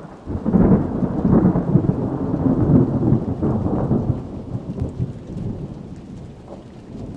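Thunderstorm sound effect: a long rolling rumble of thunder over rain, swelling about half a second in and slowly fading through the second half.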